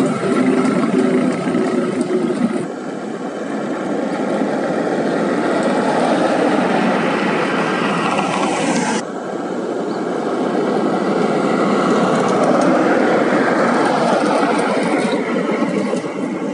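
Heavy dump truck's diesel engine running as it drives off, then steady road noise from passing vehicles' tyres and engines. The sound changes abruptly about three, nine and fifteen seconds in.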